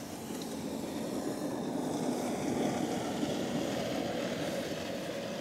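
A steady low drone of a distant engine, with no distinct events.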